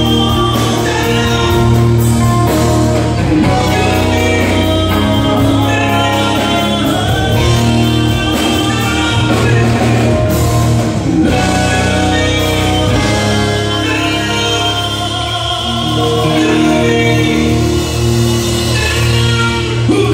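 Live rock band playing: electric guitars and a drum kit, with a singer.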